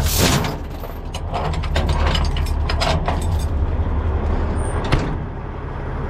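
Heavy tow chains clinking and clattering against each other and the metal compartment as they are hung up in a tow truck's side box, in a run of sharp clanks with one more near the end. Under them, the wrecker's diesel engine runs with a steady low rumble.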